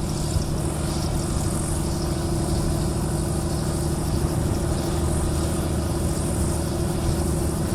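Light aircraft engine running steadily at idle, a constant hum with several fixed low tones that does not rise or fall.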